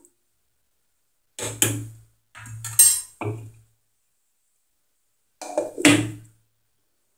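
Metal spoon knocking and clinking against a cooking pot in two short bursts, then a glass pot lid set down on the pot with a clatter near the end, the loudest sound.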